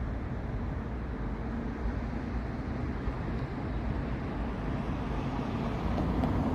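City road traffic: cars passing with a steady rumble of engines and tyres.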